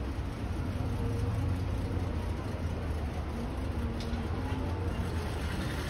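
Steady low rumble of distant city noise, with faint far-off voices in it.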